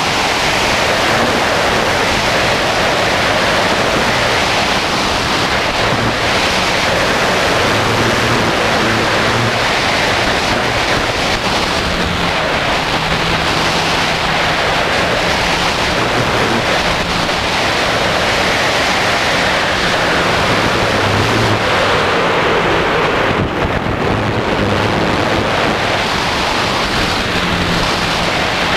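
Motors and propellers of a Sky Hero multirotor drone, heard from the GoPro mounted beneath it: a loud, steady rush of prop wash buffeting the microphone, with low motor hums that come and go and shift in pitch.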